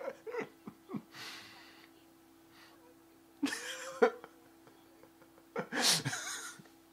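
A person laughing in short breathy bursts, snorts and gasps, with pauses between them; the loudest burst comes near the end. A faint steady hum lies underneath.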